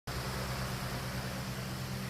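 Steady low machine hum under an even hiss, like a fan running, with no change in level.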